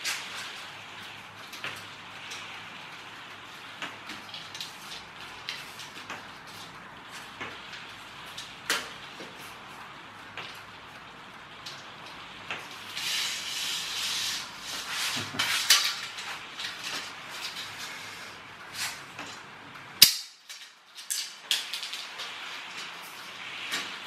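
Clicks and knocks of a cheap lightweight tripod being handled and adjusted on a table, over a steady hiss. A busier stretch of rustling and clatter comes a little past the middle, and a single sharp click near the end is the loudest sound.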